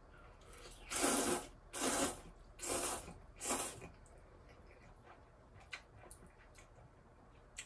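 A person slurping ramen noodles: four loud pulls in quick succession over the first few seconds, then faint small clicks.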